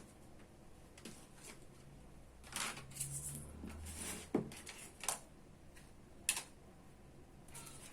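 Handling sounds: a few separate sharp clicks and knocks with brief rustling in between, as small objects are picked up and set down.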